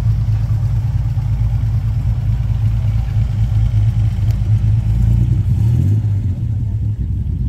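V6 engine of a Mk2 Ford Escort idling with a deep, steady note that shifts briefly about six seconds in.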